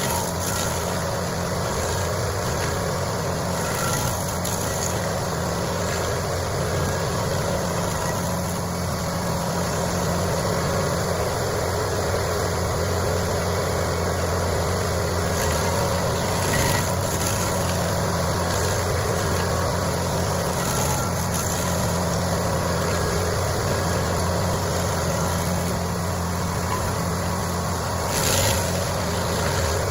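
A heavy machine's engine running steadily, with a low hum that holds even throughout. Brief louder noisy flares come through three times.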